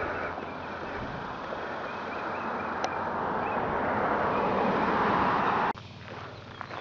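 Steady rushing outdoor noise on a camcorder microphone that slowly grows louder, then cuts off suddenly about six seconds in, leaving quieter footsteps on a dirt path.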